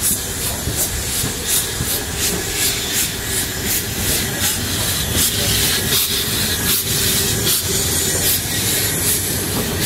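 Narrow-gauge steam locomotive working under steam as it moves along: regular exhaust chuffs, a few a second, over a steady hiss of escaping steam.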